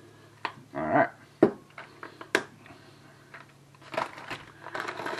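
Handling noises from a plastic seasoning shaker being put down: a few sharp clicks and knocks in the first couple of seconds, then a cluster of small clicks and rustling near the end.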